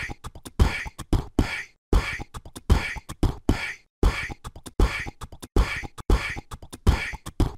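End-screen music: a dry percussive beat, a strong low kick roughly every three-quarters of a second with quick lighter clicky hits in between.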